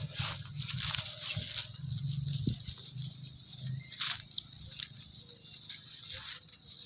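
Monkeys making short, high squeaks amid scattered light tapping and rustling, with one quick gliding squeak about four seconds in.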